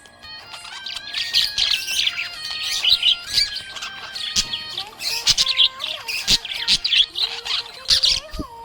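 Budgerigar chirping and warbling continuously in rapid, high, twittering chirps.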